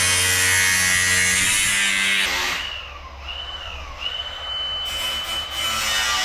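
Electric sander running on the truck's rusty body panel, a steady motor hum with gritty sanding hiss. About two seconds in the sound thins to a high, steady whine with wavering pitch.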